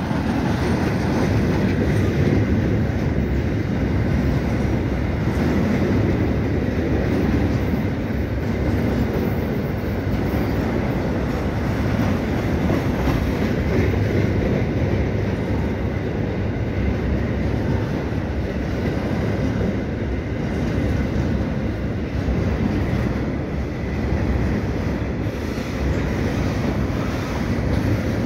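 A freight train passing close by: a FEPASA diesel locomotive goes by at the start, then a long string of tarp-covered freight wagons rolls past with a steady rumble of wheels running on the rails.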